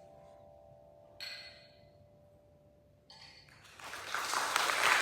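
Tone chimes' final chord ringing and fading away, followed by two short, bright, high-pitched sounds a couple of seconds apart. Audience applause then swells up near the end.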